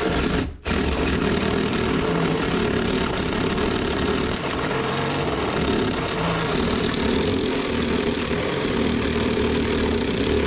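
Electric drill motor running under load, boring a hole through wooden wall framing for electrical wire. It starts, stops briefly about half a second in, then runs steadily.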